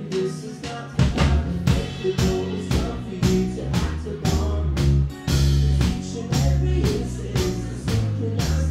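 Live band playing an instrumental passage without vocals: the drums and bass come in strongly about a second in, keeping a steady beat under the guitars.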